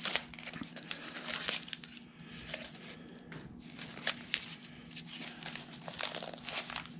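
Packaging crinkling and rustling as parts are unpacked and handled, with irregular small clicks and knocks. A faint steady hum runs underneath.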